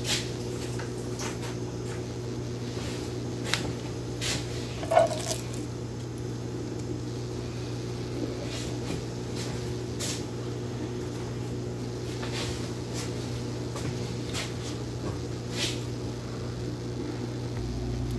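Steady low hum with scattered light knocks and clicks of kitchen handling, the loudest about five seconds in.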